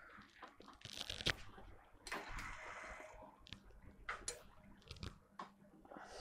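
Faint clicks, taps and rustling of hands handling an old bicycle's frame and parts, with a longer rustle about two seconds in.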